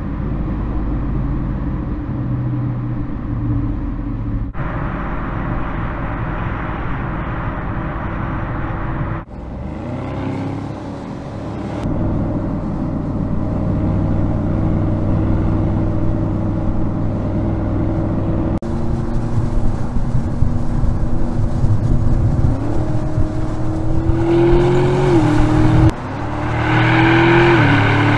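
2025 Audi SQ7's 500-PS twin-turbo V8 engine running, heard in several spliced clips that change abruptly. It runs at a steady pitch for most of the time, then rises in pitch twice near the end as the car accelerates.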